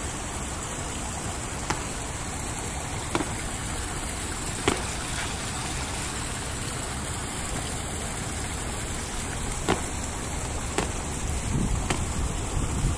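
Sneakers landing on a stone-paved deck during repeated standing precision jumps: about six short, sharp landing slaps at uneven intervals, over a steady rushing background, with wind buffeting the microphone near the end.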